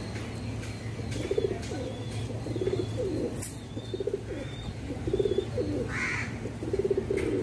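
Domestic pigeons cooing: a run of short, throaty, rolling coos, roughly one a second, starting about a second in.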